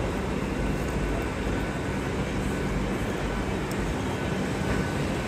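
Steady low rumble and hum of a large railway station platform under its train shed, with trains standing at the platforms.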